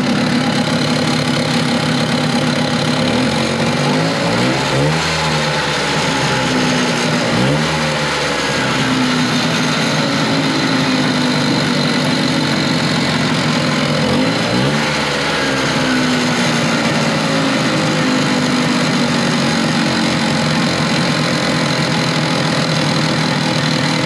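1970 Evinrude Skeeter snowmobile's opposed two-cylinder two-stroke engine running with a crisp pop. It revs up and drops back three times, about four, seven and fifteen seconds in. It sounds healthy.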